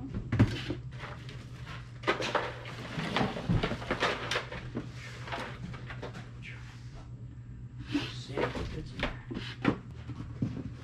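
Items being handled and packed into a cardboard box: repeated knocks and scrapes against the cardboard, with rustling, over a steady low hum.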